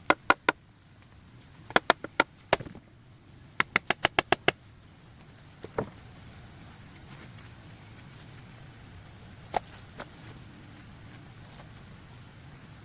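Sharp, hard knocks in quick runs of three to six, then a few single knocks further apart, over a faint steady high hiss.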